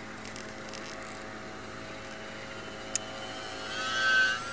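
Radio-controlled model Cessna 400 floatplane in flight: a faint steady motor-and-propeller hum that swells to a loud whine about four seconds in as the plane passes close overhead, then falls away. A single sharp click about three seconds in.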